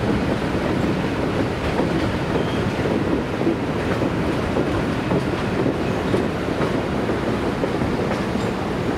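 Passenger train rolling past on the rails, a steady rumble of wheels and cars without a break.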